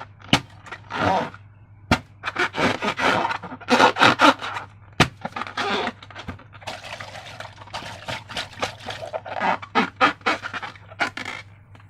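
Slime being squished and stretched by hand, giving irregular wet squelches and sticky crackles, with a few sharp clicks among them.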